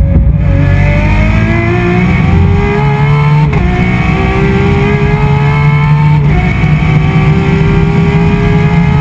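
Ferrari 599XX Evo's V12 engine at full throttle, heard from inside the car. The revs climb steadily and drop sharply at an upshift about three and a half seconds in, then climb again and drop at a second upshift about six seconds in before climbing once more.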